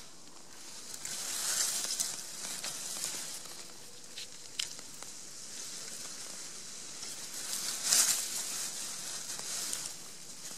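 Dry grass and stems rustling close to the microphone as they are brushed by hand. The rustle swells twice, about a second and a half in and again near eight seconds in, with a few faint snaps of stems in between.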